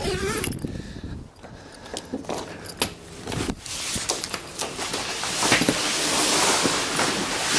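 Handling noise of someone getting through a boat's canvas cockpit cover and climbing aboard: scattered clicks and knocks, then a longer stretch of fabric rustling in the second half.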